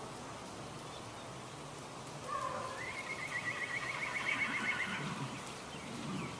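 An animal call, a quavering, rapidly pulsed cry lasting about two and a half seconds, starting about two seconds in, over a steady natural background.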